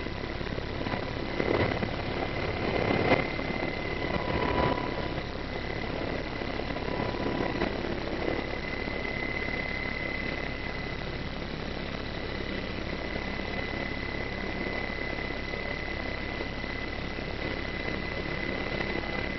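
Medevac helicopter's turbine engines and rotor running steadily, heard from inside the cabin at the open door, with a constant high whine. There are a few louder swells in the first five seconds.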